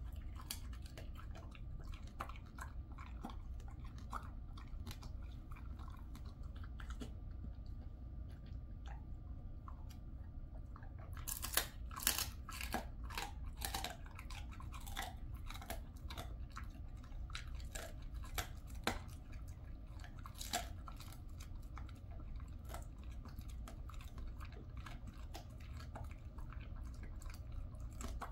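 Jindo dog crunching and chewing a dried chicken foot: irregular crisp crunches, with the densest and loudest run about halfway through.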